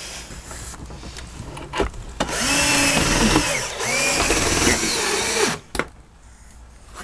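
Power drill driving a screw through the shade's mounting clip into the wooden valance. It runs in two short spells, the motor's pitch rising, holding and falling each time, and stops about five and a half seconds in.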